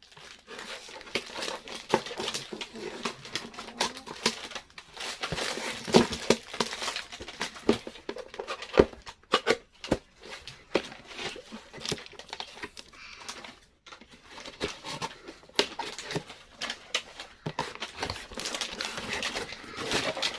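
Parcel packaging being opened by hand: irregular crinkling and rustling of wrapping, with some tearing.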